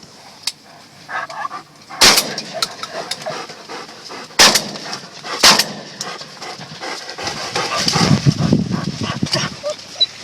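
Three shotgun shots: one about two seconds in, then two more a second apart a couple of seconds later.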